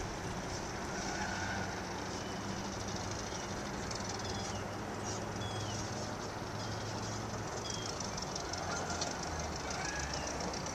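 Steady low drone of a distant microlight aircraft engine under a constant outdoor hiss, with birds giving short falling chirps several times in the second half.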